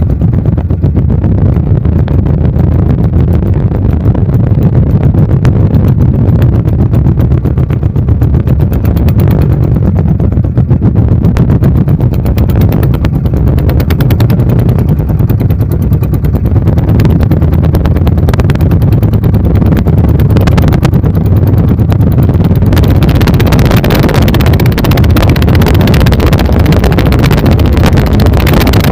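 Twin 24 HP dompeng single-cylinder diesel engines driving a wooden boat at speed during a speed test, running loud and steady with rapid, even firing. A hiss of wind and water rises from a little past two-thirds of the way in.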